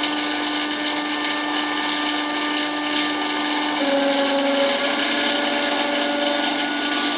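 Angle grinder spinning a disc fitted with four free-swinging hammer heads, running at speed with a steady whine. Its pitch dips slightly about four seconds in and comes back up near the end.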